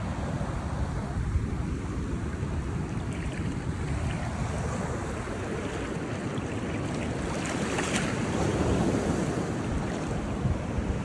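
Wind rushing over the microphone above small waves lapping in shallow water, with light splashing now and then from a South American sea lion rooting along the bottom, more of it in the second half.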